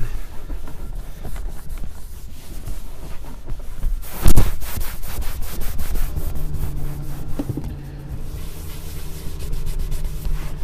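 Terry applicator pad rubbing leather conditioner into a leather car seat, in quick repeated strokes, with one loud knock a little over four seconds in. A low steady hum comes in about halfway through.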